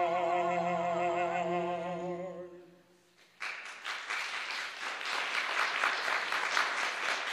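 A singer's final held note with vibrato and the accompaniment's closing chord fade away. After a brief hush, about three and a half seconds in, the audience breaks into applause that keeps going.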